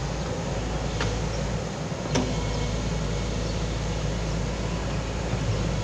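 Foton crawler excavator's diesel engine running steadily while the boom and bucket work, with a single sharp knock about two seconds in.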